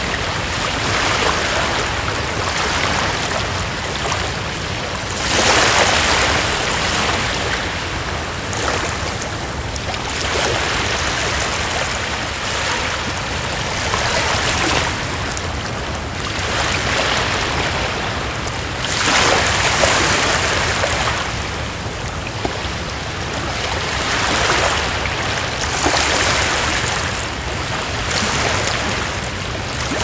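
Small sea waves washing in over a rocky shore: a continuous rush of water that swells and eases every few seconds.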